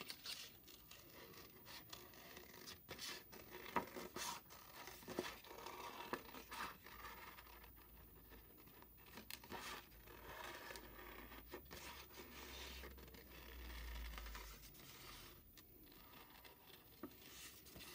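Faint scissors cutting construction paper in short, irregular snips, with paper scraping and rustling as the sheet is turned against the blades.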